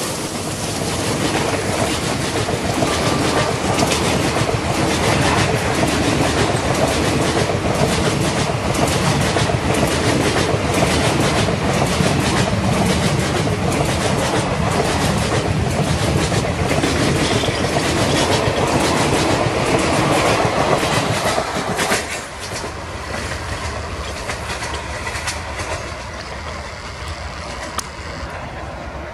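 Indian Railways passenger coaches passing close at speed, their wheels clattering in a steady rhythm over the rail joints beneath a loud rolling roar. About three-quarters of the way through, the sound drops to a quieter rumble.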